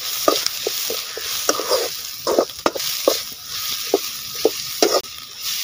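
Sliced onions and green chillies frying in coconut oil in a large metal kadai with a steady sizzle. A metal ladle stirs them, scraping and clinking against the pan two or three times a second.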